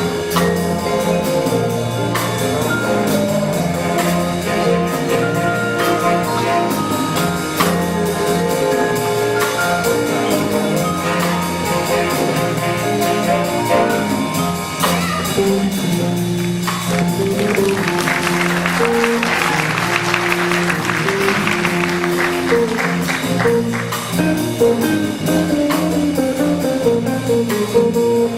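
School band playing a piece live: brass and woodwinds hold and change notes over a steady bass. Roughly halfway through, a dense fast rattling noise joins in for several seconds, then fades back under the band.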